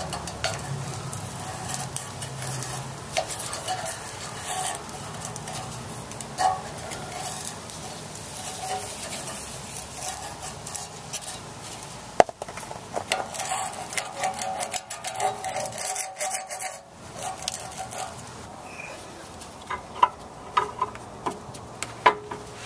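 Old gasket material being scraped off the metal flange of the car's rear exhaust joint, with repeated rough scraping strokes and a short pause about two-thirds of the way through.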